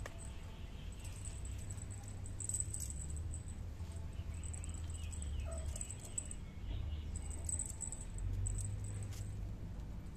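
Faint scuffling, rustling and ticking as a kitten paws at and grabs a hanging pom-pom wand toy against cardboard, over a steady low hum.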